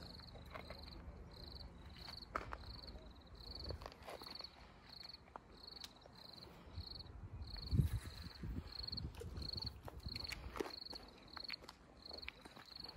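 An insect chirping steadily in a high, even rhythm of about two to three short chirps a second. Faint scattered clicks and a brief low rumble about eight seconds in sit underneath.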